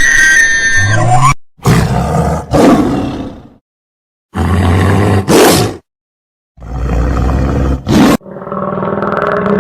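A large animal roaring in three loud separate calls, each cut off abruptly by an edit to silence.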